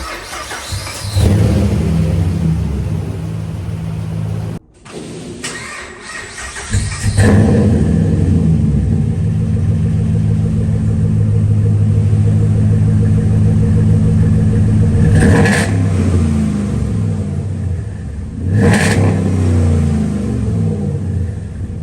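Dodge Ram 2500 truck engine being run after months of sitting: it runs with a brief cut-out about five seconds in, then runs steadily and is revved briefly twice in the second half.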